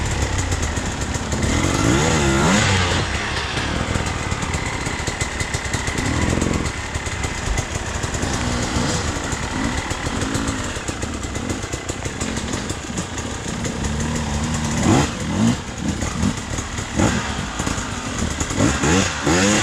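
Off-road motorcycle engine revving up and down repeatedly as the bike is worked up a steep, hard climb. The revs come in quicker, sharper bursts near the end.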